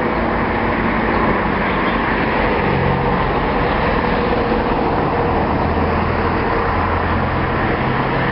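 Steady road traffic noise, with a vehicle's engine running low and steady from about two and a half seconds in.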